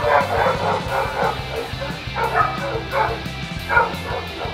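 Small dogs yapping in a quick run of short, high barks.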